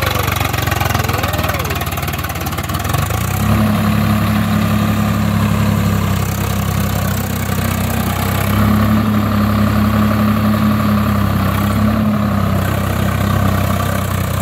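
Swaraj 855 tractor's diesel engine running under load while driving a rotary tiller through soil. Its note strengthens about three seconds in and then holds steady.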